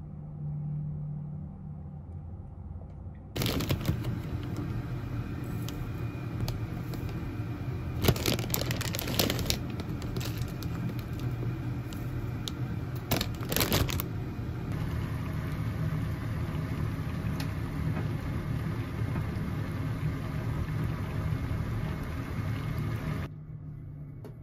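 Dry rolled oats scooped with a measuring spoon and poured into a bowl, with a few sharp rustling, crunching scrapes, over a steady whirring hum.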